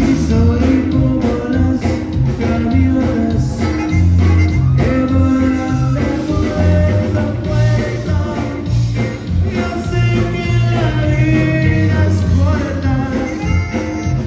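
Live conjunto band playing dance music: button accordion and bajo sexto over bass guitar and drums, with a voice singing.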